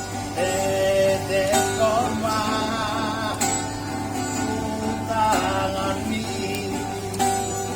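Music: a man singing a song to strummed acoustic guitar.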